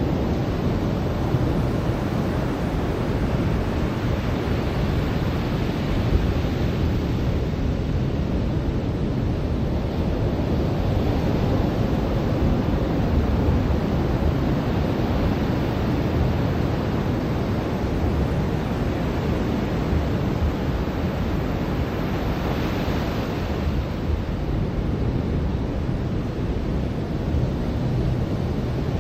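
Ocean surf on a beach: a steady, deep rush of breaking waves, with the hiss of a wave washing up swelling a few times.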